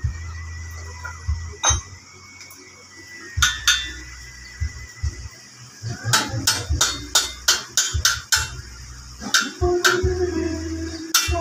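Hammer striking steel: a few separate blows, then quick runs of about three or four sharp metallic taps a second on the welded coil spring and bar.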